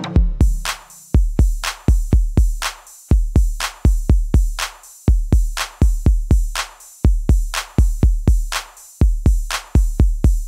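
Electronic background music: a drum-machine beat led by deep bass-drum hits in a repeating rhythm, with a steady cymbal hiss above.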